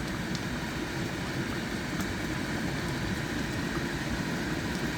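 Steady low rumble and hiss from a pot of chicken kaldereta cooking on the stove, with a couple of faint clicks.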